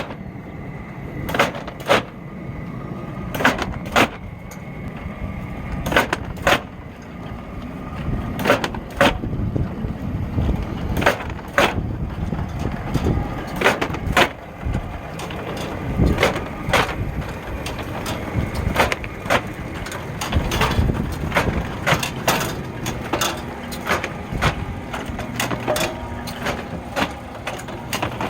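An automatic seedling-tray feeder running: a steady machine rumble with sharp clacks as trays are handled. At first the clacks come in pairs every two to three seconds, then they come more often and less regularly in the second half.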